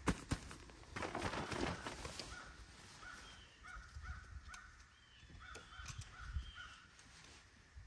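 A bird calling faintly: a series of short, harsh, evenly spaced calls from about two seconds in, in two runs. Before that, nylon fabric rustles as a carry bag and tarp are handled.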